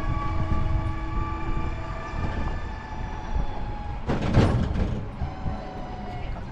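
Tuk-tuk riding along the road: a steady rumble of motor and road noise with a few held tones, and a brief louder rush about four seconds in.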